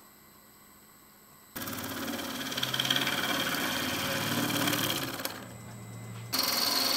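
Turning gouge cutting a green fir blank spinning on a wood lathe, rough-turning it round. The cutting starts suddenly about a second and a half in, stops for about a second near five seconds leaving only the lathe's steady hum, then starts again.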